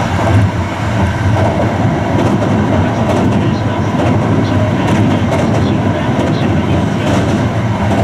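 Interior running noise of a Hankyu new 1000 series electric multiple unit at speed: a steady rumble of wheels on rail with a few sharper clacks from the track.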